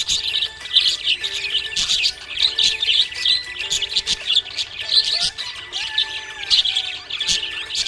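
Budgerigars chirping and twittering in a constant, busy chatter of quick high chirps.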